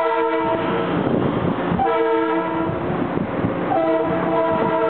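Long Island Rail Road M3 electric train's horn sounding three blasts, two of about a second each and a third that begins near the end and is still going. This is the grade-crossing warning as the train departs and approaches a road crossing. Train running noise sits underneath.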